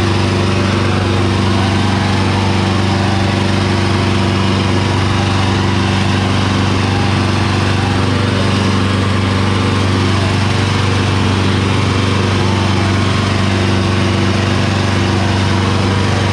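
Sonalika DI 750 III tractor's diesel engine running loud and steady at full throttle, labouring under a heavy load as it drags two disc harrows with its rear wheels spinning.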